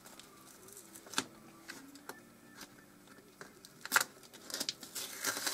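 Adhesive tape being peeled off a laptop's plastic display frame: scattered small clicks and crackles, a sharper tick about a second in, and a louder run of crackling near the end.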